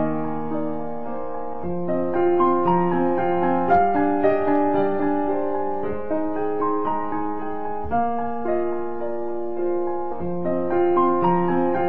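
Background piano music: a slow, gentle melody over a repeating accompaniment.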